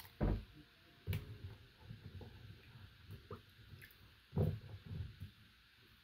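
Pieces of quince being handled and cut with a small knife over a small stainless steel pot: soft wet squishing, with a few dull knocks against the pot.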